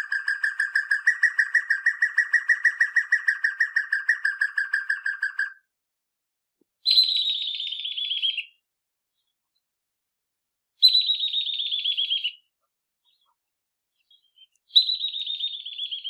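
Recorded calls of two different southern African bird species, one after the other. First comes a fast, even run of pulsed notes, about five a second, that stops about five and a half seconds in. Then comes a higher, descending trill, given three times about four seconds apart.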